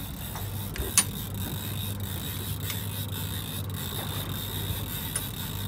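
Conventional saltwater fishing reel being cranked against a hooked fish on a deeply bent rod, its gears clicking and creaking, with one sharp click about a second in, over a steady low hum.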